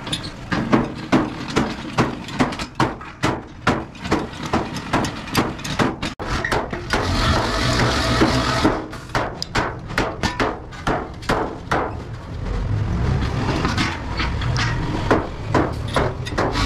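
Repeated hammer blows on sheet metal, about two to three a second, with a slight metallic ring. A lower rumble runs under the blows in the later seconds.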